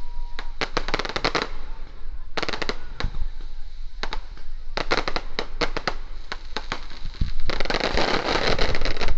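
Firecrackers going off in rapid strings: volleys of sharp bangs in quick succession with short pauses between them, thickening into a dense continuous crackle about seven and a half seconds in.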